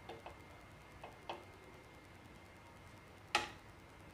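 A metal spoon stirring cooked rice in a pan, with a few faint clicks as it touches the pan and one sharper clink near the end.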